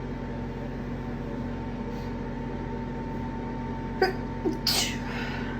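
A person sneezing: a sharp catch of breath about four seconds in, then one loud, hissing sneeze, from a dust allergy. A steady background hum runs underneath.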